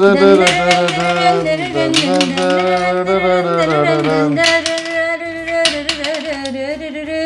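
A voice singing or humming a wordless tune in long held, gently sliding notes, with a few sharp clicks of plastic game discs dropped into a vertical connect-five grid.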